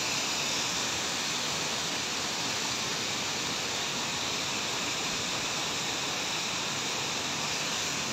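Waterfall, a steady rushing of falling water, even throughout.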